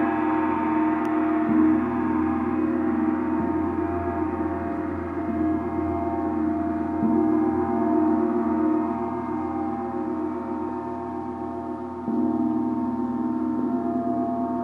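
Gong played with repeated soft mallet strokes, a sustained wash of many overlapping ringing tones. A fresh stroke renews it every couple of seconds, with a louder one about twelve seconds in.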